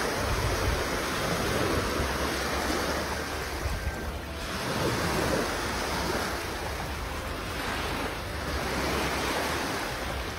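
Small sea waves washing onto a sandy shore, swelling and easing every few seconds, with wind buffeting the phone microphone in a low rumble.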